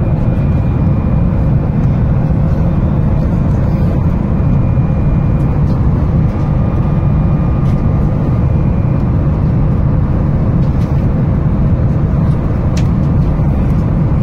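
Steady low rumble of cabin noise inside a Boeing 737 MAX 8 airliner, the drone of its CFM LEAP-1B engines and the air around the fuselage, even in level throughout.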